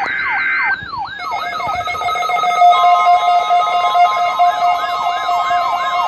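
Electronic siren with a falling pitch sweep that repeats about twice a second. Several steady tones join it about a second in, and another tone is added partway through.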